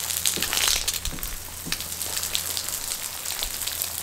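Water running and fizzing into a muddy puddle of dry dirt: a steady crackling hiss with small pops and clicks, over a faint low hum.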